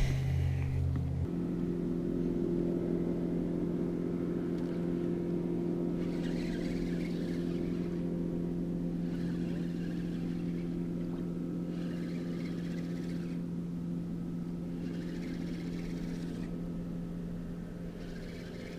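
Motorboat engine running steadily on the river, a low even hum that slowly fades, with a soft rushing noise swelling and dying away about every three seconds.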